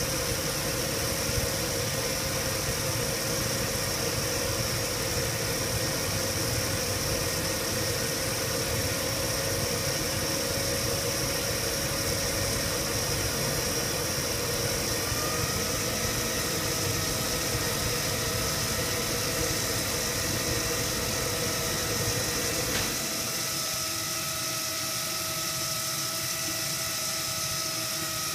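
Small electric pump motor running steadily, a whine over a rough hum. About halfway through the whine steps up slightly in pitch, and later the low rumble drops away, leaving the whine.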